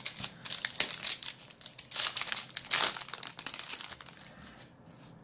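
Foil wrapper of a Yu-Gi-Oh booster pack crinkling and crackling as it is torn open by hand and the cards are pulled out, with a couple of louder rustles about two and three seconds in. The crinkling thins out and gets quieter after about four seconds.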